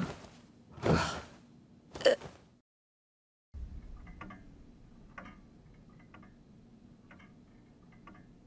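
Three sharp loud sounds in the first two seconds, a brief dead silence, then a longcase pendulum clock ticking faintly about once a second.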